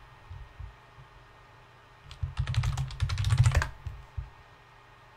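Typing on a computer keyboard: a couple of single keystrokes near the start, then a quick run of keystrokes from about two seconds in to just before four seconds, as a terminal command is entered.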